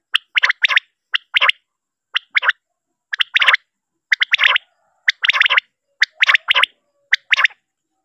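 Male common quail (batair) calling: short phrases of two or three quick, sharp notes, repeated about once a second with silence between.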